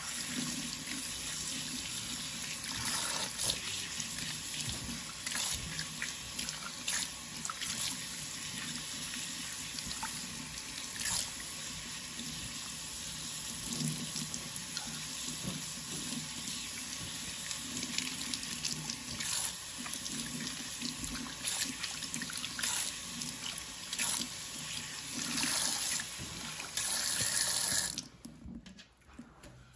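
Kitchen faucet running water over hair bundles and hands into a stainless steel sink, splashing as conditioner is rinsed out. The tap shuts off near the end.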